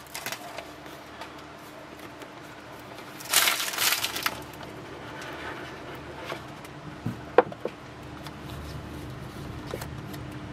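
Plastic cellophane wrap crinkling in a short burst about three seconds in, then a cardboard box being handled and opened, with light taps and clicks and one sharp tap about seven seconds in.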